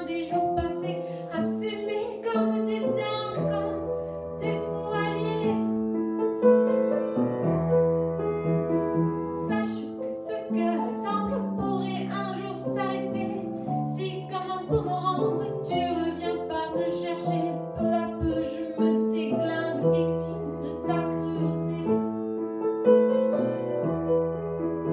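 A woman singing a song with grand piano accompaniment, the piano playing chords that change every second or two under her melody.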